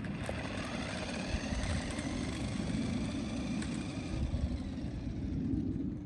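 Electric motor of a remote-control car whining as the car drives off, several tones gliding in pitch and fading out about four seconds in. A steady low rumble runs underneath.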